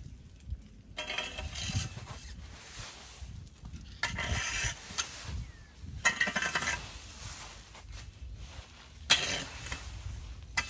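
A rake dragging dry leaves across a concrete pavement: about four raking strokes a few seconds apart, each a short scraping rustle, with fainter rustling between them.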